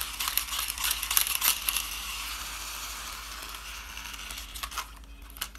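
Plastic toy motorbike handled in the hands: sharp plastic clicks and rattles, with a steady rustling hiss in between as it is turned over.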